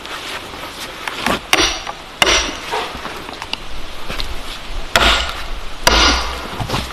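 Four sharp knocks of a tool striking wood, spaced irregularly, each with a brief rattling tail.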